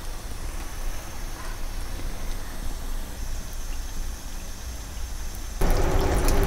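Spring rolls sizzling in hot oil in a frying pan on a low flame, a steady hiss with a low hum under it. About five and a half seconds in the sizzle suddenly gets louder.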